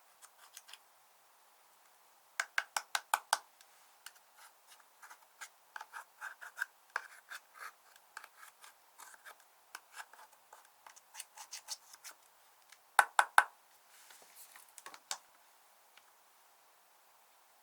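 Hands squishing and pressing slime, making sticky clicks and pops: a quick run of about six loud clicks a couple of seconds in, scattered clicks after, and another loud cluster about two-thirds of the way through.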